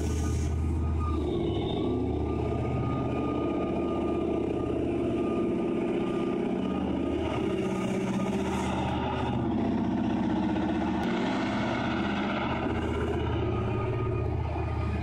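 Caterpillar 6090FS hydraulic mining shovel's twin diesel engines running steadily while the machine swings, with a steady high-pitched tone over the low engine hum.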